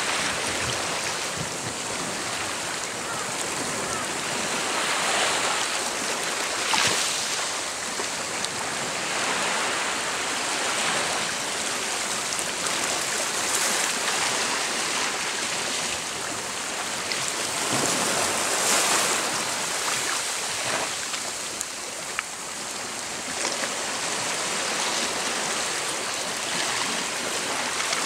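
Small waves washing gently onto a rocky, sandy shore: a steady hiss of water with soft surges every few seconds.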